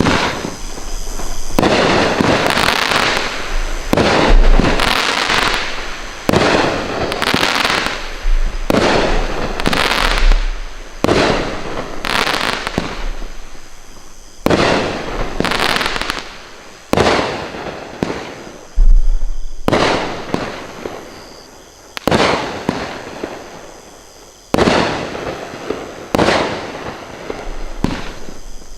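Bright Star Traffic Jam 500-gram aerial repeater cake firing shot after shot, one every one to two seconds. Each shot starts sharply and trails off in a noisy tail that fades.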